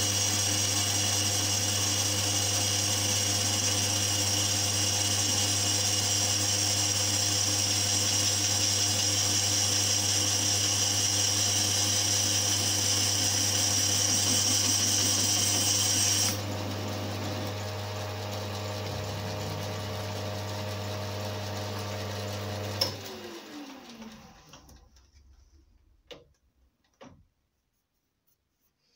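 Metal lathe turning a cast metal blank: a steady motor hum with the hissing noise of the tool cutting. The cutting noise stops about two-thirds of the way through while the lathe keeps running. Near the end there is a sharp click, and the lathe winds down to a stop, followed by a few faint clicks.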